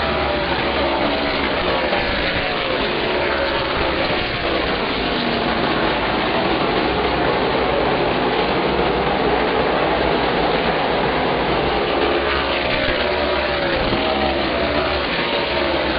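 A field of super late model stock cars with their V8 engines running together as the pack circles the oval, many engine notes rising and falling over one another.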